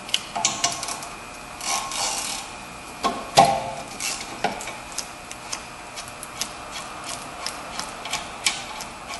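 A wrench loosening the 14 mm bolts at the back of a rear brake caliper: metal scraping and rattling, a clunk about three and a half seconds in, then a run of light clicks.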